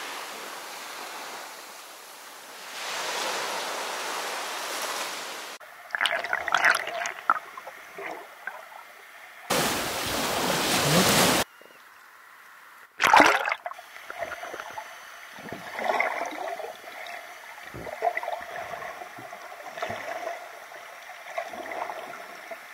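Small sea waves washing onto a sandy beach, then water splashing and gurgling around a swimmer at and under the surface. A loud rush of water noise lasts about two seconds a little before the middle, and a sharp splash comes about thirteen seconds in.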